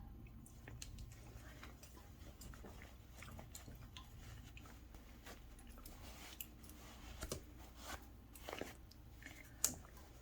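Faint, scattered rustling and crinkling of cotton fabric with thick batting being handled, with a few sharper clicks and rustles in the last few seconds.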